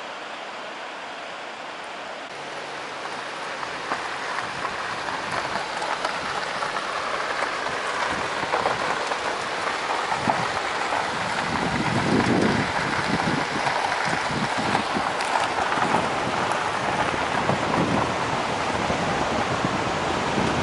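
Car driving on a gravel road, heard through an open window: steady tyre and road noise with wind buffeting the microphone, growing louder from a couple of seconds in.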